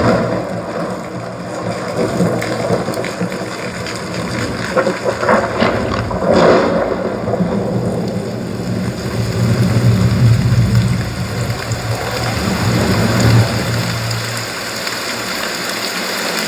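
Dolby demo soundtrack played through Edifier R1280DB powered bookshelf speakers: a dense wash of sound effects over a steady low rumble, swelling briefly about six seconds in and again near the end.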